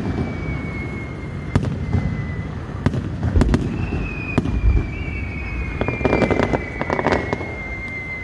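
Fireworks display: a run of sharp bangs and crackling reports over low rumbling booms, with dense clusters of cracks about three and a half seconds in and again around six to seven seconds. A long thin whistle, slowly falling in pitch, sounds near the start and again from about four seconds on.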